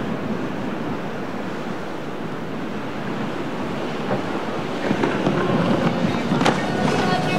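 Breaking surf and choppy inlet waves, with wind buffeting the microphone. The rush grows louder and rougher about five seconds in.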